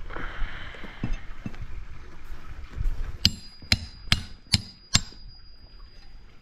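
A hammer striking a flat metal hand tool five times in quick succession, about two strokes a second, each a sharp metal-on-metal clink, with a high ring lingering after the last. Softer knocks and scraping come before the strikes.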